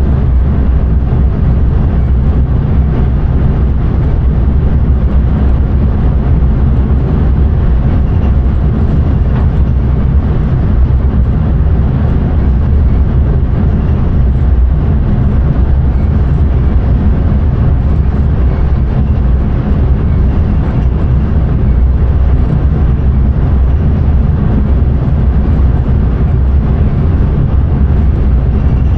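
Intercity train running along the line, heard from inside the driver's cab: a loud, steady rumble of wheels on rails and running gear.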